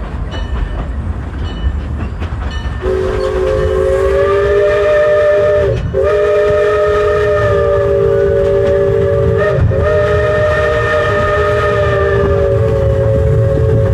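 Steam locomotive's chime whistle blowing, a steady chord of several tones that starts about three seconds in and runs on, broken twice for an instant, over the low rumble of the moving train.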